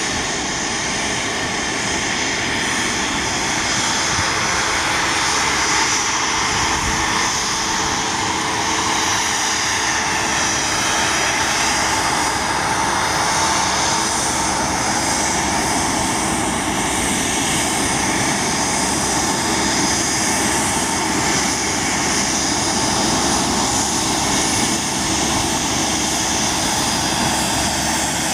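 Turbofan engines of a taxiing Bombardier business jet, a steady whine over a rushing roar.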